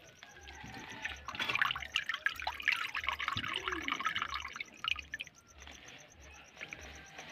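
Shallow muddy water splashing and dripping: a dense run of small splashes and trickles from about a second in to about five seconds in, then quieter dribbling.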